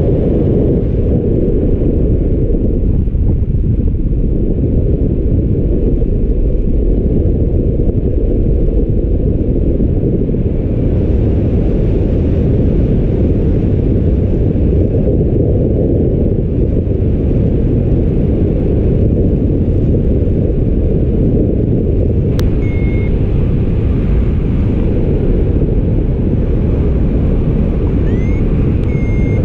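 Steady, loud wind rumbling on the microphone of a paraglider pilot in flight. A click and a short high tone come about three-quarters of the way in, and a rising glide into a short high tone comes near the end.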